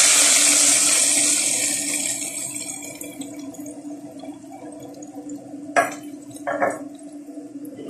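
Hot frying oil poured from a pan onto browned beef in an aluminium pot, sizzling loudly and dying away over about three seconds. Two short knocks follow about six seconds in.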